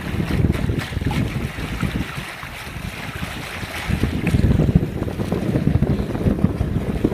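Water rushing and splashing along the hull of a sailboat under way, with wind buffeting the microphone in gusts, heaviest about four to five seconds in.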